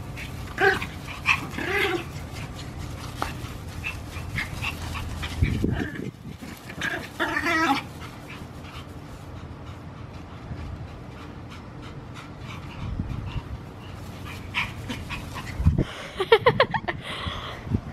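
Two small puppies play-fighting, giving short high yips and whining play noises in three bouts: about a second in, around the middle, and again near the end.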